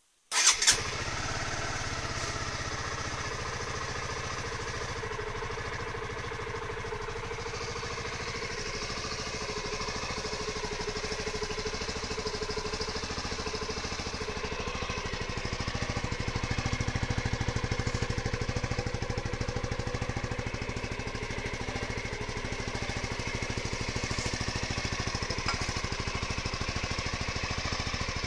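2008 Honda CBR125's 125 cc single-cylinder four-stroke engine starting about half a second in with a short burst, then idling steadily.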